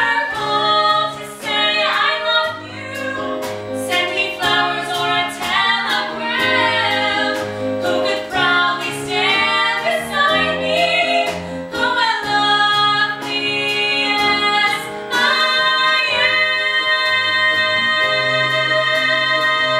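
Two female voices singing a duet over a low instrumental accompaniment, ending on a long held note from about fifteen seconds in.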